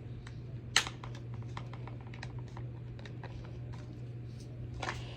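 Small plastic clicks and scrapes as a smoke alarm is twisted and pried against the older mounting base it is stuck on, with a sharper click about a second in and another near the end.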